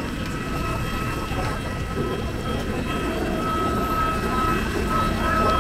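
A parked jet airliner's machinery humming steadily with a high, even whine, heard at the open cabin door.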